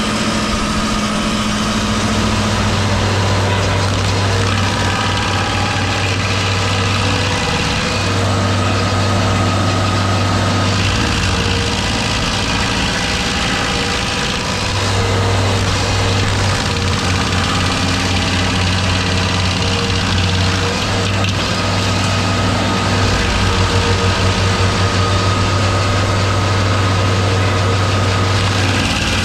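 A heavy machine's engine running, settling to idle and picking up again several times.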